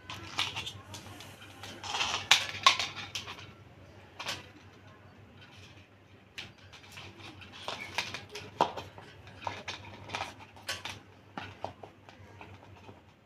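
Ceiling fan parts being handled during assembly: irregular clicks, taps and knocks as the canopy is fitted over the downrod and the wires are fed through it. The loudest cluster comes about two to three seconds in.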